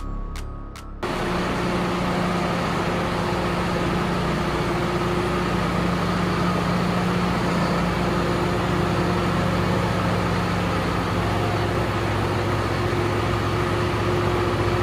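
John Deere tractor's diesel engine idling steadily, a loud, even running noise with a constant low hum. The tail of an electronic intro jingle cuts off about a second in.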